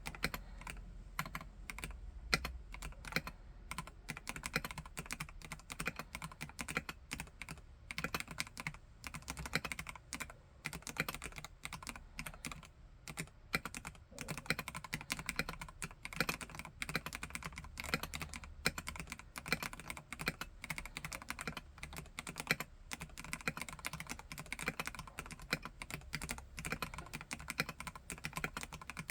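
Continuous typing on a Vortex KBt RE:68 mechanical keyboard with Gateron G Pro Red linear switches: a fast, unbroken stream of keystroke clacks, many per second.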